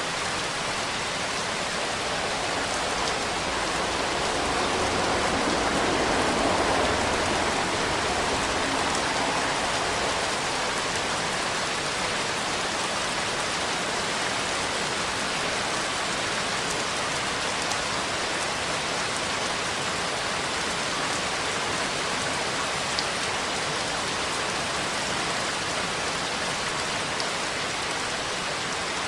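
Steady heavy rain hissing, swelling louder and deeper for a few seconds early in the stretch before settling back to an even downpour.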